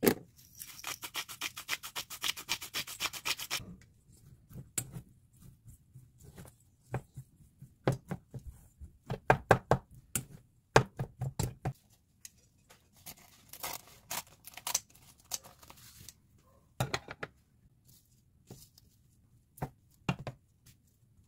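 Plastic rice paddle knocking and scraping against a stainless steel bowl while mixing cooked rice. A quick rattling run of strokes comes in the first few seconds, then scattered knocks follow.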